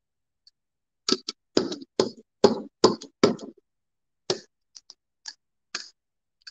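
Rubber brayer rolled quickly back and forth through tacky blue paint, about six short strokes in a row starting about a second in, then a few lighter, sparser strokes.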